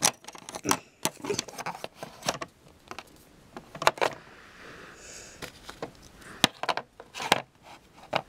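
Littlest Pet Shop plastic toys clicking and clattering in irregular bursts as a hand moves the figure and its toy chair about on a plastic playset, with a soft rustle about four seconds in.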